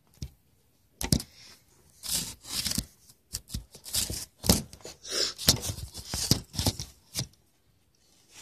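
Handling noise of a phone camera being moved about close to its microphone: an irregular run of rustling and scraping with a few sharp knocks, stopping near the end.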